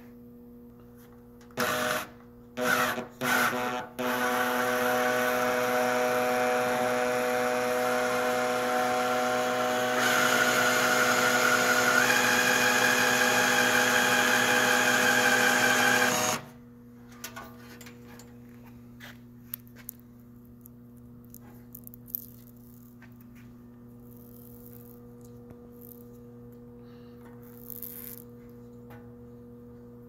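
Makita cordless drill turning the cutter rollers of a CWS-3 copper wire stripper: a few short trigger blips about two seconds in, then a steady run of about twelve seconds that gets louder and a little higher in pitch partway through, stripping the insulation off T90 electrical wire, before stopping abruptly. After it, only faint clicks from handling the stripped wire.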